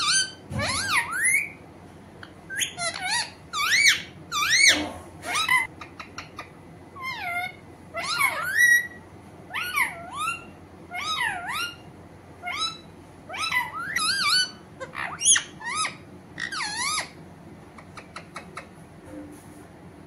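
Alexandrine parakeet calling: a long run of short whistled chirps and squawks that swoop up and down in pitch, coming in quick clusters. The calls stop about three seconds before the end.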